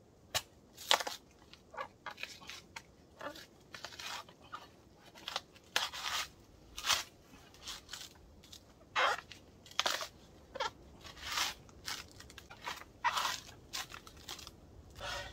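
Coconut husk being split and torn away on a metal husking stake: a series of irregular crunching, ripping sounds, roughly one every half second to second.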